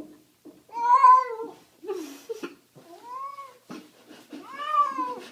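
Tabby cat being bathed, standing wet in the bathwater and held, meowing in protest: three long, drawn-out meows, each rising and then falling in pitch, the first the loudest.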